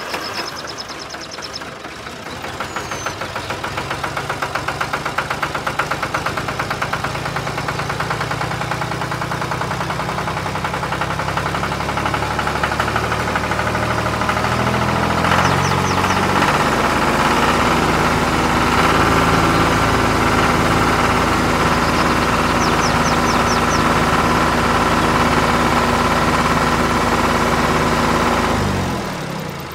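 Diesel tractor engine running with a steady knocking beat. It grows louder about halfway through and stops shortly before the end.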